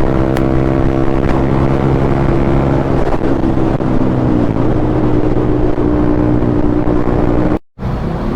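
Motorcycle engine running at a steady cruising speed, heard from the rider's camera with wind noise. Its pitch eases down a little about four seconds in, then holds. It cuts out abruptly near the end.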